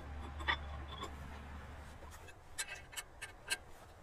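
Small metal clicks and scrapes as a steel splitting wedge is handled and bolted onto a tree-felling head with an Allen key. The clicks come singly at first, then faster in a short run in the second half, over a low steady hum that fades about halfway through.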